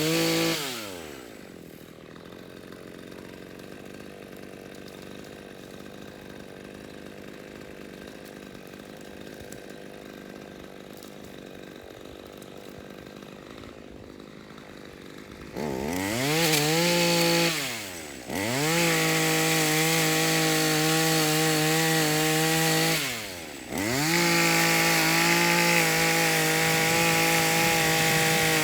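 Gasoline chainsaw engine revved and dropping back to a low idle, idling for several seconds, then throttled up about halfway through and held at high speed with two brief drops in revs.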